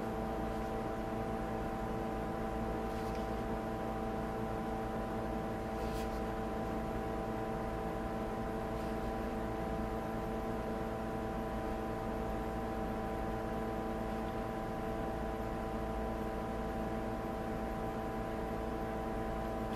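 Steady machine hum made of several fixed tones over a low rumble, with a faint click about six seconds in.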